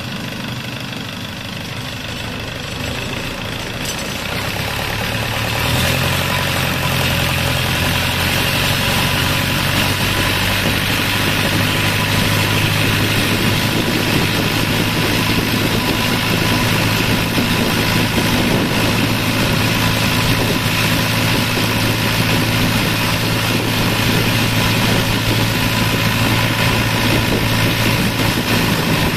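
A small motorboat's engine running steadily. About five seconds in it grows louder and its hum rises a little as it picks up speed, then holds there.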